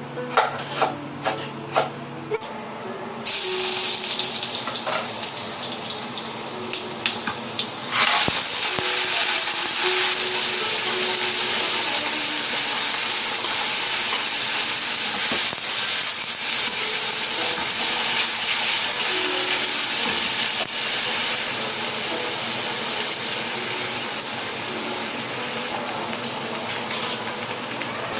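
A few clinks, then water running steadily from a kitchen tap. The flow starts about three seconds in and grows stronger about eight seconds in.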